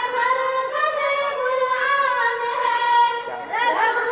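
A high voice singing a slow melody in long held notes, pausing briefly near the end before starting a new rising phrase.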